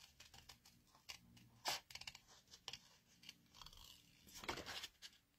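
Small scissors snipping around a stamped image in white card: a few faint, irregular snips.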